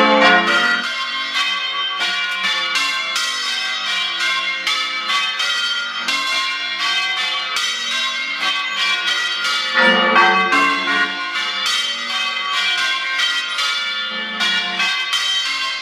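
A ring of five church bells, tenor in F, change ringing: bells struck one after another in a steady stream of overlapping, sustained tones, with a louder swell about ten seconds in.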